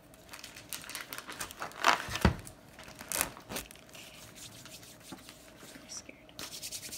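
Plastic packaging of a gingerbread house kit crinkling as its pieces and wrappings are handled, in irregular crackles, with a louder knock about two seconds in.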